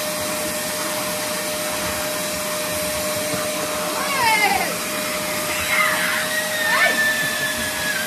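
Vacuum cleaner running steadily with a constant hum. A pitbull puppy gives a few short whines at its nozzle about halfway through and again a couple of seconds later.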